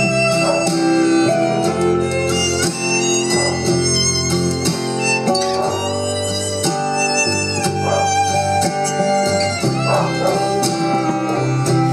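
Music played over Bluetooth through a Mondial CM500 powered speaker, as a test after a 2-ohm resistor in it was replaced with a ceramic one. The music runs loud and unbroken.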